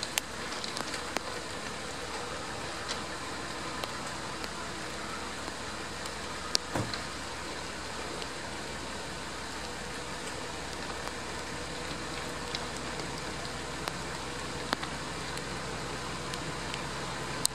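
Steady rain hiss with scattered sharp drip clicks. Under it a diesel locomotive's engine runs faintly in the distance, its low rumble growing near the end as the locomotive comes closer.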